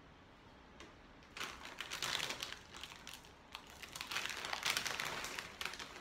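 Plastic snack bag of Snyder's pretzels crinkling as it is handled, in two stretches of crackling: one about a second and a half in, and a longer one from about three and a half seconds to near the end.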